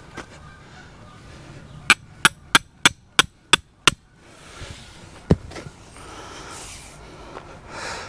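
Hammer driving a tent stake into the ground: seven quick blows about three a second, then one more single blow a second and a half later.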